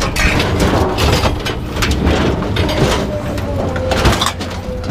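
Scrap metal clanging and scraping as it is pulled and tossed off a truck bed, with many knocks in quick succession over a steady low rumble.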